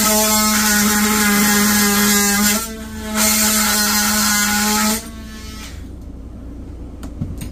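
Handheld electric power tool running with a steady high whine as it cuts at a nail in a wooden frame. It eases off briefly about two and a half seconds in, picks up again, then stops about five seconds in.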